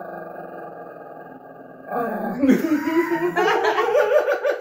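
Small long-haired dog growling in a long, steady grumble, then breaking into a louder, wavering, rising growl about two seconds in. It is a protest growl at a man reaching to take it from its owner's arms. A woman laughs over it near the end.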